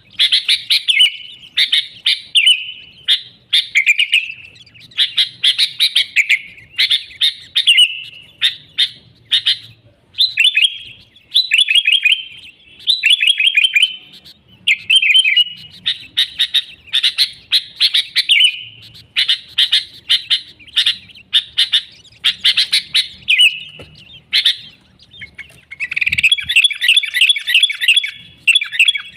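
Sooty-headed bulbul singing loudly and busily: short bubbly, warbling phrases one after another, about one a second, running into a longer unbroken string of rapid notes near the end.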